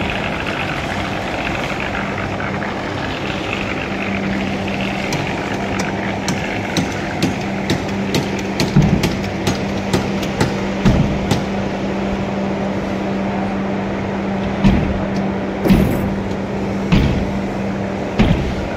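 A motor running with a steady low hum, overlaid from about a quarter of the way in by many sharp clicks and, in the second half, several heavier knocks of construction work.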